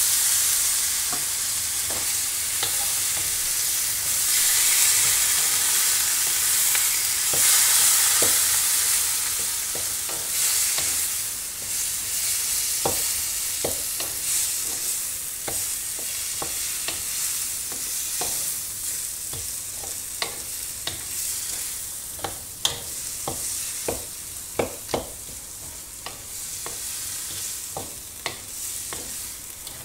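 Boiled jackfruit pieces sizzling in hot oil in a wok as they are stir-fried, with a spatula scraping and knocking against the pan. The sizzle is loudest at first and slowly dies down, and the spatula knocks stand out more in the second half.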